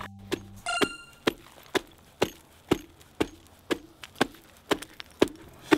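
Ice chisel chopping a hole through thick ice, with sharp, even strikes about twice a second. There is a short metallic ring just under a second in.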